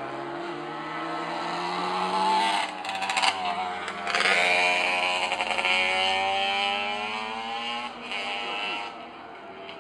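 Classic racing motorcycle engines revving hard on the circuit. The pitch climbs, breaks about three seconds in and jumps up again around four seconds, as at gear changes. The engines are loudest for the next couple of seconds, then fall slowly in pitch and fade as they move away.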